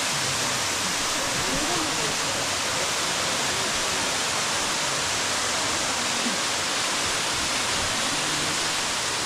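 Steady rush of running water, as from a waterfall or fast stream, with faint voices underneath.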